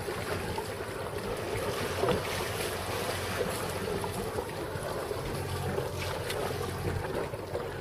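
Steady wind buffeting the microphone over open water, with a rushing waves-and-water wash and a low steady hum underneath that grows stronger in the second half.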